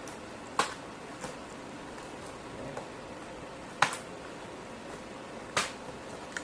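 Scissors snipping cardboard: four sharp snips, irregularly spaced, one to two seconds apart.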